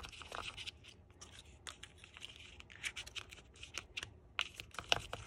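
Metal ball stylus pressing and stirring paper petals inside a clear plastic half-sphere mold, shaping them into a cup: irregular light scratches and clicks of paper and plastic rubbing.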